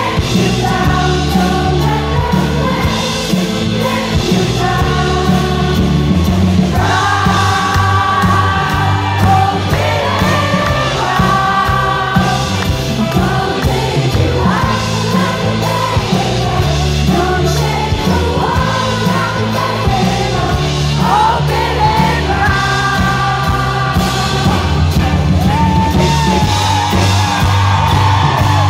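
Live pop band music with a man singing lead into a microphone.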